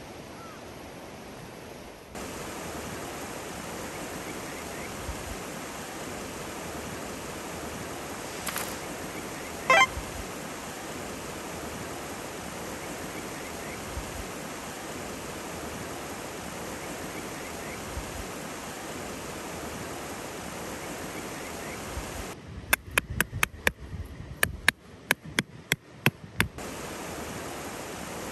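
Steady rush of a stream. Near the end the rush drops away and a quick run of about a dozen sharp knocks sounds.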